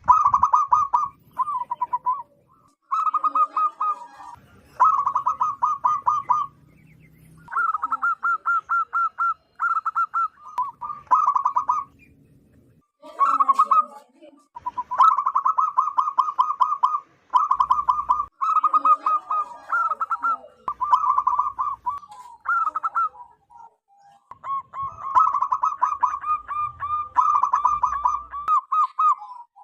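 Zebra dove cooing: rapid runs of staccato, rippling coo notes in phrases of one to two seconds, repeated with short pauses between them.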